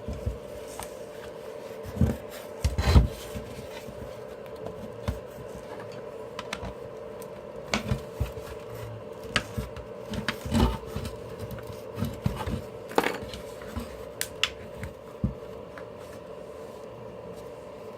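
Plastic housing parts of an electric blower being handled and pulled apart by hand during a teardown: scattered knocks, clicks and rubbing, the loudest knock about three seconds in. A steady hum runs underneath.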